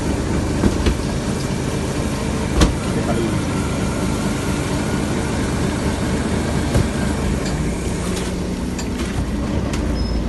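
A fishing boat's engine running steadily, with scattered clicks and knocks of work on deck and one sharp knock about two and a half seconds in.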